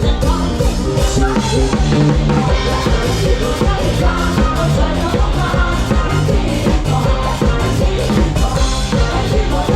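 Live rock band playing, an instrumental passage driven by a drum kit with bass drum and snare, without singing.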